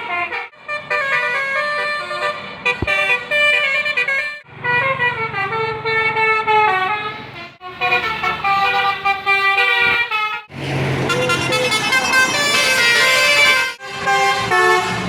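Indonesian 'telolet basuri' multi-tone bus horns playing quick stepping melodies of several notes at once. They come as a run of separate clips with brief breaks between them.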